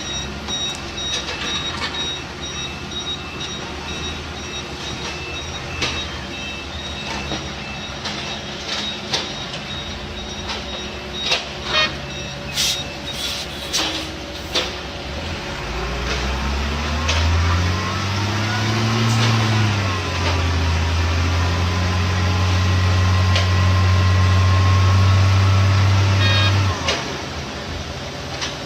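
Heavy construction machine at work: a reversing alarm beeps steadily for the first several seconds, with a few sharp metallic knocks, then the engine revs up and runs loud and steady before cutting off abruptly near the end.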